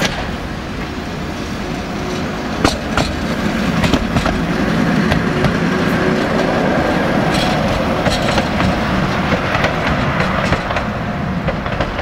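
Tatra tram passing close by on its track. Its wheels click over the rail joints, with a steady motor whine over the rumble. The sound grows louder as it nears and eases slightly as it pulls away near the end.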